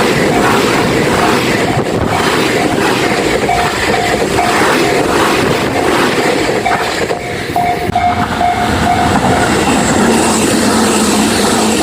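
A train passing over a Japanese level crossing, its wheels clacking over the rail joints, while the crossing's warning bell rings repeatedly.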